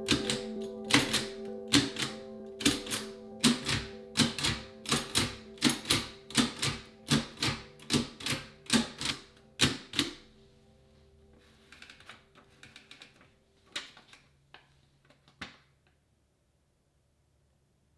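1887 Crandall New Model type-sleeve typewriter being typed on: sharp key strikes about two a second for some ten seconds, then a few fainter, scattered clicks that stop near the end. Background music plays under the typing.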